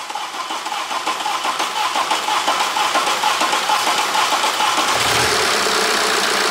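BMW 520d's four-cylinder diesel engine being cranked over by the starter with a steady pulsing, then catching about five seconds in and running. This is its first start after a new high-pressure fuel pump was fitted and the fuel lines bled.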